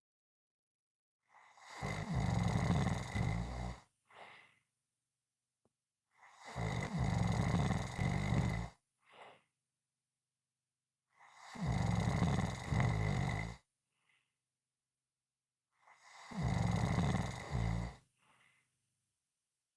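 Loud snoring: four long snores about five seconds apart, each followed by a brief faint breath.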